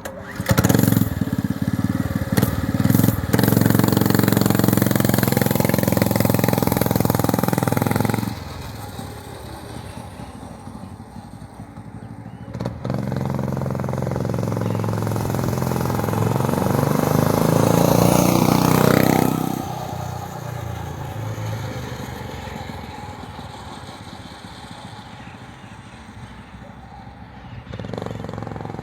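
Small diesel engine of a minibike running. It is loud for the first eight seconds or so, then quieter, then climbs in pitch and loudness to a peak a little after halfway, as if revved or ridden closer, before dropping back to a lower steady note.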